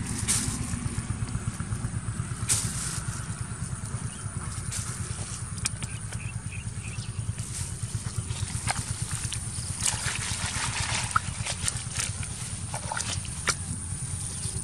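A small engine running steadily with a low, fast pulse, under scattered clicks and rustles from hands sorting small fish in a plastic basket.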